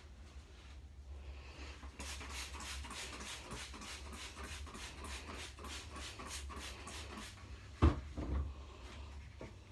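Rhythmic swishing strokes from cleaning in a foam-filled toilet bowl, about three or four a second for several seconds. Near the end they are followed by one sharp thump.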